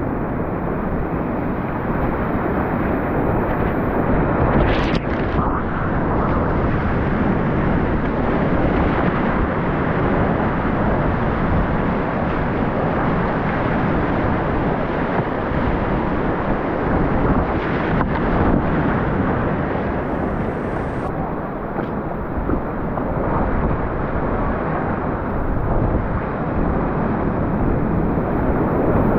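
Whitewater river rapids rushing steadily, a dense unbroken noise.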